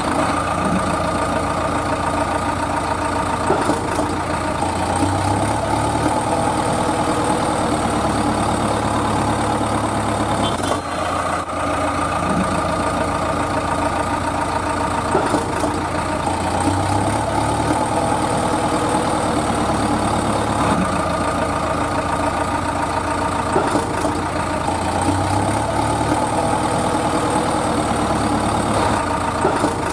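Truck engine idling steadily, a continuous low running sound with a pattern that recurs every few seconds.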